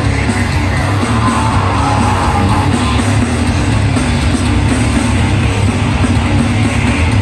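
A heavy band playing live and loud: distorted guitars and pounding drums in one dense, steady wall of sound.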